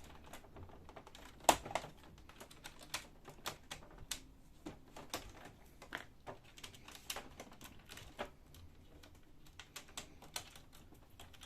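Irregular small plastic clicks and taps as the white cable's connector is worked loose from the fuser unit of a Brother DCP-7055 laser printer. The loudest click comes about one and a half seconds in.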